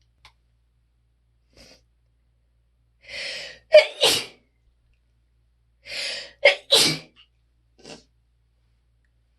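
A person sneezing twice, about three seconds apart, each sneeze preceded by a half-second drawn-in breath, in a fit of repeated sneezes.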